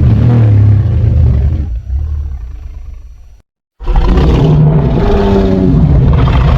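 Godzilla monster roar sound effect: a deep, loud roar fades away, cuts to a brief silence about three and a half seconds in, and a second deep roar starts straight after it.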